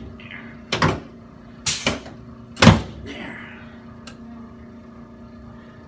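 Chiropractic thrusts on the lower back and pelvis: four sharp clunks and cracks about a second apart, two of them close together, the last the loudest.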